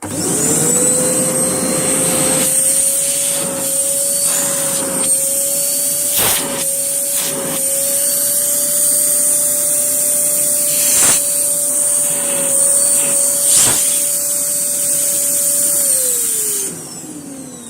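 Hoover Blaze canister vacuum cleaner switched on and running at a steady motor whine with a high hiss, showing off its suction. Near the end it is switched off and the motor winds down, its pitch falling.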